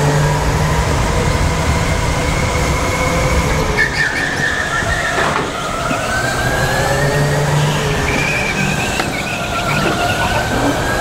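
Electric go-kart's motor whining, its pitch falling and rising several times as the kart slows for corners and speeds up again, over a steady low hum.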